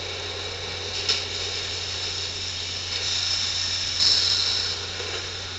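New York City subway train standing at a station: a steady low hum under a high-pitched whine and hiss. There is a click about a second in, and the whine gets louder about four seconds in.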